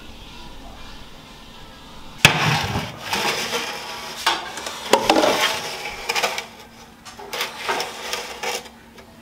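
A metal baking tray and wire rack clattering as they are handled on a stone counter. A sharp clank comes about two seconds in, followed by several knocks and scrapes of metal.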